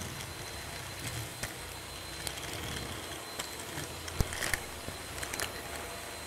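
Shark Rocket stick vacuum running over a hard floor, heard through a headphone microphone wrapped on its wand: a steady motor hum with scattered sharp clicks of cat litter granules being sucked up the tube. The loudest click comes a little past the middle.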